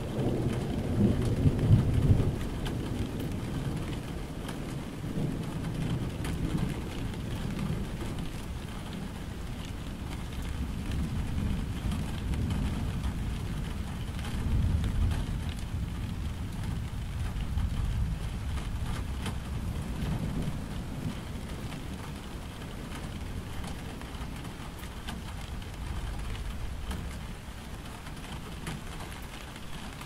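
Steady rain falling, with a low rumble that swells and fades underneath it, loudest in the first couple of seconds.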